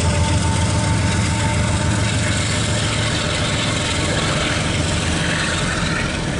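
Intermodal freight train's flatcars, loaded with highway trailers, rolling past on the rails in a steady rumble, heard from inside a car's cabin. A faint thin whine fades out about a second and a half in.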